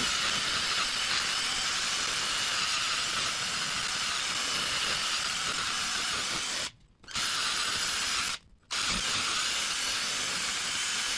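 Cordless drill spinning a hub-cleaning attachment against the rusty mounting face of a wheel hub, a steady grinding noise as it scours the rust off. It stops briefly twice, a little past the middle, and starts again each time.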